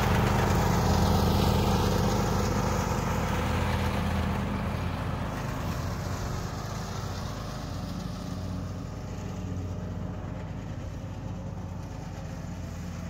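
John Deere riding lawn mower running with its blades set at the lowest height, mulching thick old grass. It starts loud and close, then fades steadily as the mower moves away.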